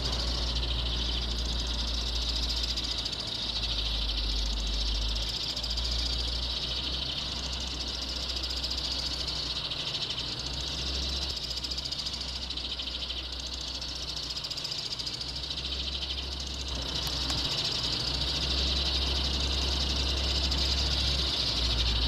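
Recorded sparrow calls played from a loudspeaker as a lure: a dense, continuous high chirping chatter. A low steady rumble runs underneath.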